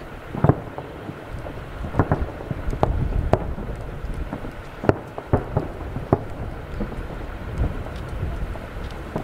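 Aerial firework shells bursting: about a dozen sharp bangs at irregular intervals, some in quick pairs, over a steady low rumble.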